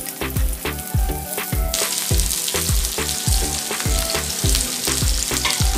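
Sliced onions sizzling in hot oil in a pan as they are stirred with a spatula, the hiss growing fuller about two seconds in. Under it runs background music with a steady low beat.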